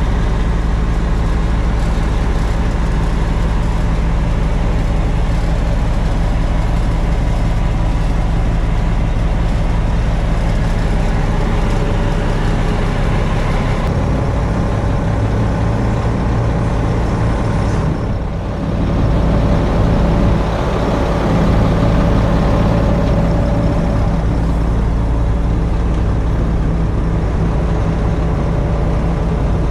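Mack AMI 335 diesel engine idling steadily.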